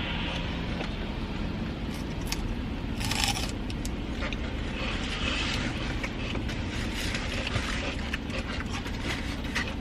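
Celery being bitten and chewed with crisp crunches and mouth clicks close to the microphone, over a steady low rumble.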